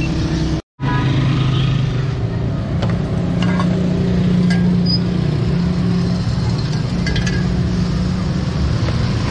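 Roadside street noise: a steady engine drone of motor traffic, with a few light metallic clinks and clicks. The sound cuts out completely for a split second near the start.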